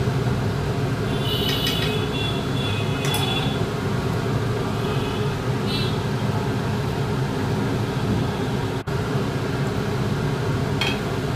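A spoon stirring salt into rice and water in a metal pot, clinking against the pot with short ringing tones twice in the first few seconds and once more, fainter, about six seconds in. Under it runs a steady low hum.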